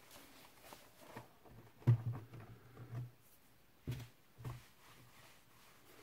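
Handling noises from a Packard Bell notebook being turned over and set down on a wooden table: a knock about two seconds in, the loudest, two more knocks around four seconds in, and faint rubbing and shuffling between them.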